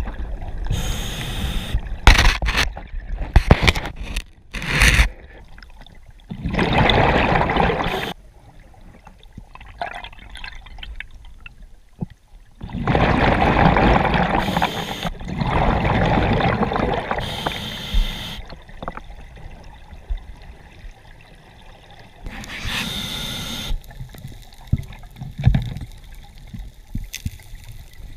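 Scuba diver breathing through a regulator underwater: rushes of exhaled bubbles every few seconds, each lasting one to several seconds, with quieter gaps between. A quick run of knocks and clicks comes in the first few seconds.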